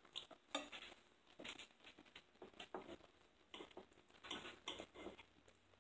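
Faint eating sounds: scattered light clicks and scrapes of a knife and forks on plates while steak is cut, with soft chewing.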